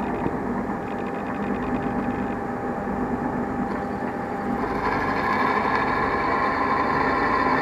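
Electric drill motor running steadily while drilling a hole through a metal plate, growing louder and brighter about five seconds in as the bit cuts.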